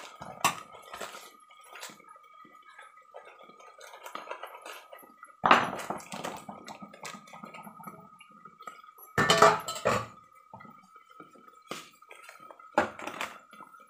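Steel kitchen pots and utensils being handled, with scattered clinks and knocks. The louder clatters come about five and a half seconds in, around nine to ten seconds, and near the end. A faint steady high whine runs underneath.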